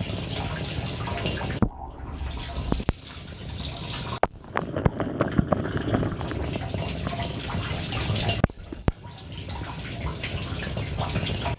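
Water spraying and splashing inside a Samsung dishwasher during a wash, a dense hiss that drops away briefly twice, with a few sharp knocks.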